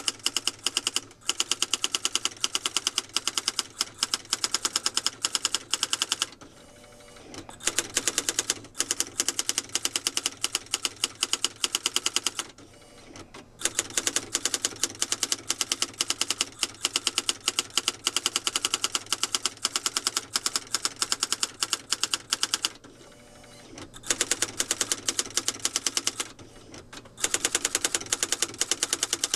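Smith-Corona Typetronic III daisy-wheel electronic typewriter printing out a stored text from its memory on its own: rapid, even strikes at about ten a second, in long runs broken by a few pauses of one to two seconds.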